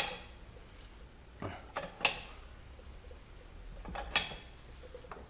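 Metal hand tools clinking against each other and the engine: a few sharp metallic clicks, about two seconds apart, as a feeler gauge and spanner are handled during a valve-clearance adjustment.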